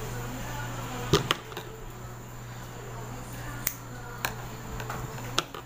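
Scissors snipping through hair: about five short, sharp snips at uneven intervals, two close together about a second in, over a low steady hum.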